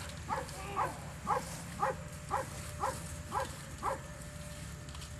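German shepherd barking in a steady series of short barks, about two a second, that stop about four seconds in, during protection bitework with a decoy.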